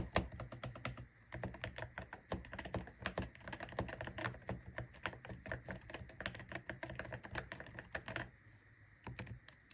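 Typing on a Royal Kludge RKS98 mechanical keyboard fitted with Akko Rosewood switches and heavy Cerakeys ceramic keycaps: a rapid run of keystrokes, pausing for about a second near the end before starting again.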